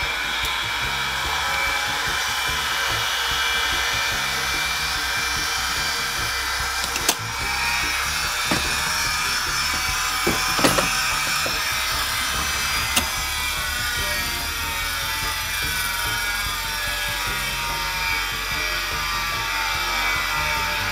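Ferguson Videostar 3V30 top-loading VCR running in play mode: a steady, noisy whirr from the spinning video head drum motor, with a few sharp mechanism clicks around the middle. The machine is running but not spooling the tape, for a reason the owner can't yet tell.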